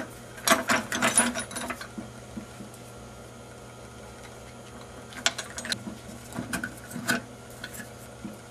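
Small plastic isolator bushings clicking and rattling as they are handled and pushed over metal studs through a circuit board. There is a quick cluster of clicks about half a second in, lasting about a second, then a few scattered clicks between five and seven seconds in.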